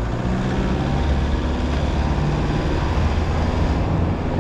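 Four-wheel drive's engine running hard under full throttle up a soft sand hill, tyres still at road pressure: a steady low drone with a rushing noise over it.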